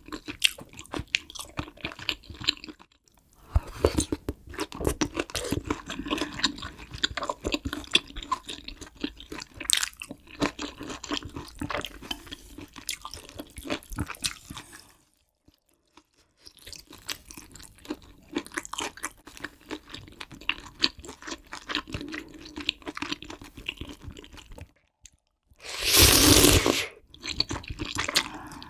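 Close-miked eating of kimchi stew with pork, tofu and ramen noodles: wet chewing with crisp, crunchy bites, broken by two short pauses. Near the end comes a louder, breathy rush lasting about a second.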